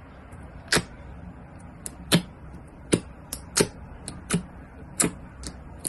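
Fingers poking and pressing clear blue slime in a plastic tub, making sharp wet pops as air pockets in the slime burst, about nine of them at irregular gaps.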